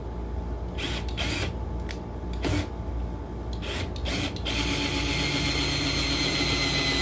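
Cordless drill boring a hole in steel at a steel bracket on an ammo can, the spot oiled with a drop of oil: a few short bursts of the drill to start the hole, then a steady run of the motor from about halfway through.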